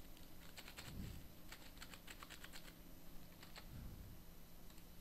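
Faint typing on a computer keyboard: quick runs of keystrokes from about half a second to two and a half seconds in, then two more keystrokes around three and a half seconds.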